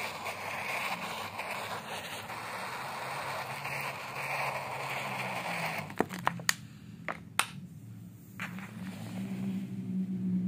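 Water poured onto a water-repellent jacket fabric, splashing and running off the cloth for about six seconds, then stopping. A few sharp clicks follow, and a low hum is heard underneath near the end.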